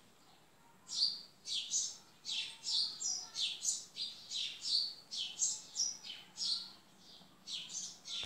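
A small bird chirping: a quick series of short, high chirps that drop sharply in pitch, about two a second, starting about a second in.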